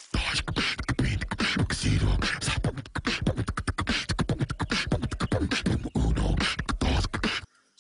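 A person beatboxing: fast, rhythmic mouth-made drum sounds, with deep kick-like thumps under rapid clicking and hissing strokes, stopping suddenly near the end.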